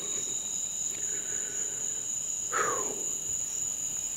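Evening insect chorus of crickets trilling steadily at two high pitches, with one short falling sound about two and a half seconds in.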